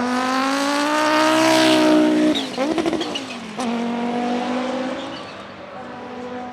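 Turbocharged 2.2-litre five-cylinder engine of an Audi 90 Quattro IMSA GTO race car accelerating hard, its note climbing for about two seconds. On a brief throttle lift at the gear change the turbo gives a fluttering chirp, then the engine pulls again at lower revs and fades as the car moves away.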